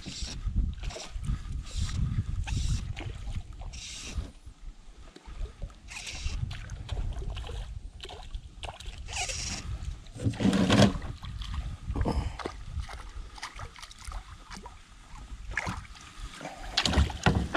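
Kayak on the water: irregular knocks and handling noise against the hull with water sloshing, over a low rumble; the loudest burst comes about eleven seconds in.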